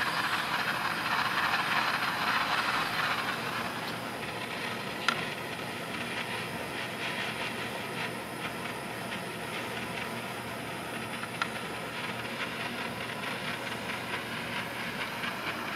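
Gas torch flame hissing steadily while heat-anodizing a mokuti titanium handle piece, a little louder for the first few seconds, with a couple of faint clicks.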